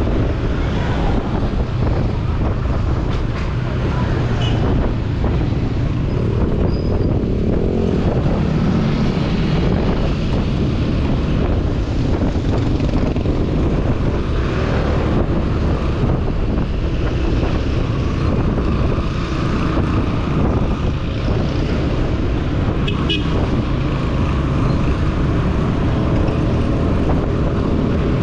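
Motor scooter riding in city traffic: a steady rumble of wind on the microphone over the scooter's engine and the surrounding traffic. A short, high-pitched sound stands out briefly near the end.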